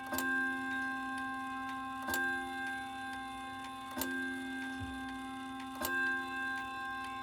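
Ridgeway wall clock striking on its chime rods: four hammer blows about two seconds apart, each rod ringing on into the next, with the clock's ticking between. The rack is held out so the strike runs on continuously while a sticky hammer frees up.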